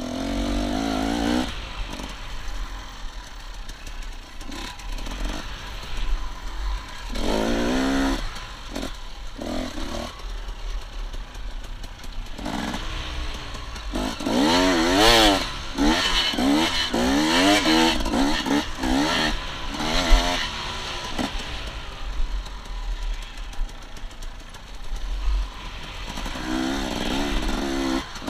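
Single-cylinder enduro dirt bike engine under a rider's throttle, revving up and down in quick rises and falls as the bike is ridden over a rough dirt track. The revving is busiest and loudest about halfway through, with another burst near the end.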